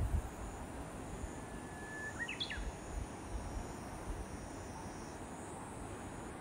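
Steady low outdoor background noise, with a bird singing once about a second and a half in: a held whistled note, then a quick higher flourish that rises and falls.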